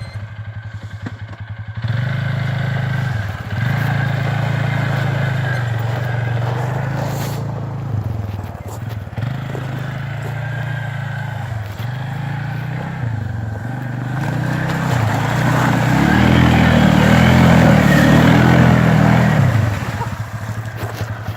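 Arctic Cat 450 ATV engine revving over and over, the pitch rising and falling with each blip of the throttle. It runs hardest and loudest for a few seconds near the end, then drops back.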